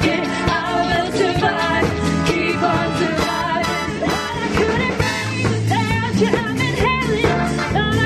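Women's voices singing a pop-rock song through microphones over an instrumental accompaniment with a steady beat.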